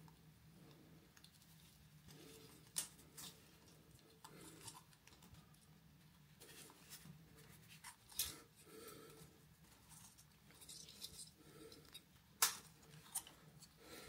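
Faint handling noise of an old wall switch and its wires as they are worked free of the switch's terminals: scattered small clicks and scrapes of the metal mounting frame and plastic mechanism, with a few sharper clicks, the loudest near the end.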